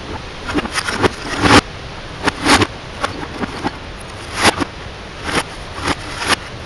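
Hammer and screwdriver blows knocking and cracking on a smashed CRT television's plastic casing and tube, about a dozen irregular strikes played backwards, so each one swells up and cuts off suddenly.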